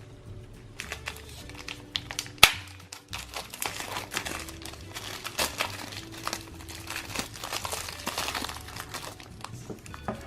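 Plastic candy packaging crinkling and crackling as it is handled, with one sharp click about two and a half seconds in; soft background music underneath.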